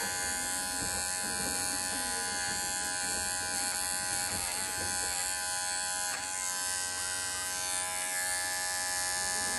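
Cordless electric pet clippers running steadily as they trim the hair out between a puppy's foot pads.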